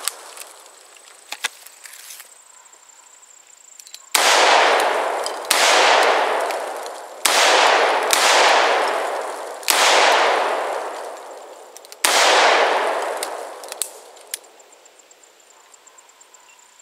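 Six shots from a Smith & Wesson Governor .410/.45 Colt revolver over about eight seconds. Each ends in a long echoing decay. A few light clicks of gun handling come before and after them.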